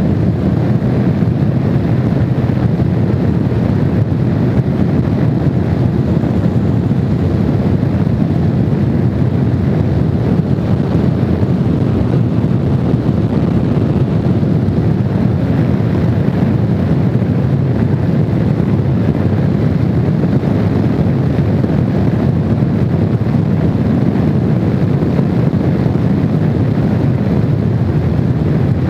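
Honda VFR750 motorcycle riding at a steady speed: a loud, even rush of wind on the microphone, mostly low in pitch, with the bike's running noise underneath and no change throughout.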